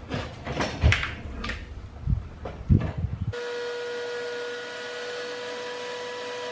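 A few scattered knocks and thumps for about three seconds. Then, after a sudden cut, a wet/dry shop vacuum runs steadily with a whining hum as it sucks up spilled coolant.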